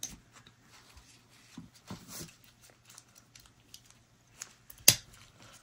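Light metal clicks and scrapes as the steel side plate of a Taurus 856 revolver is seated onto the frame, with one sharper click a little before the end.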